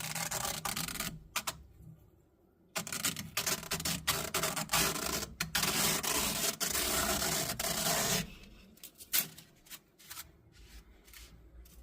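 A 3D-printed textile being peeled and rubbed off a flexible print sheet, making a dense scraping, rubbing noise in two stretches: a short one, then a pause, then a longer one. A few light clicks follow.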